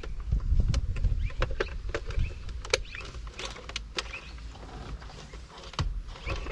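Plastic clicks, taps and handling noise from a Mitsubishi Pajero's air-conditioning control panel as it is reconnected and pressed back into the dash. Sharp clicks come every second or so, over a low rumble of handling that is heaviest in the first couple of seconds.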